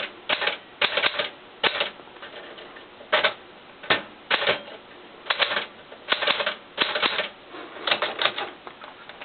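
Keys being struck one at a time on a Smith-Corona-built Penncrest Caravelle manual portable typewriter, each typebar hitting the platen with a sharp clack. The pace is slow and uneven, with some strokes in quick pairs and short pauses between them.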